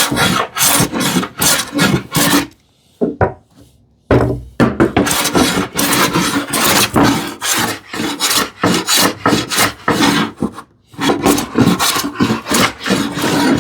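Sharp No. 4 smoothing plane cutting shavings in quick, repeated strokes across a wide wooden panel, each pass a rasping swish. The run pauses twice briefly.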